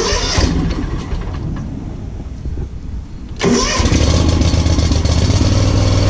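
Hustler Fastrak SD zero-turn mower's Kawasaki V-twin engine being cranked with the key and catching about three and a half seconds in, then running steadily. This is a cold start on fresh oil after an oil change and tune-up.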